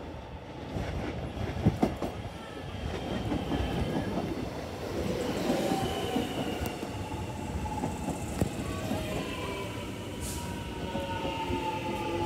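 Alstom X'Trapolis electric suburban train pulling into the platform: a steady rumble of wheels on rail with a few sharp clicks early on. From about halfway through, a whine of several tones slowly falls in pitch as the train slows.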